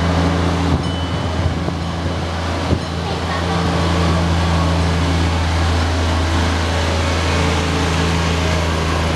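Miniature ride-on park train's small locomotive running with a steady low hum as it pulls past with its cars, with riders' voices over it.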